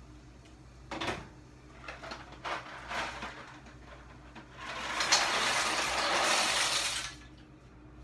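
Dry macaroni poured from a cardboard box into a pot of boiling water: a dense rattling rush lasting about two seconds in the second half, after a few light clicks and knocks as the box and pot are handled.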